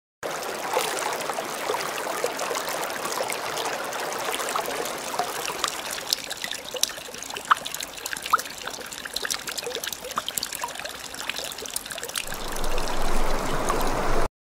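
Water trickling and splashing into a shallow pool, with many small drips and plinks scattered through it; it grows louder near the end and cuts off suddenly.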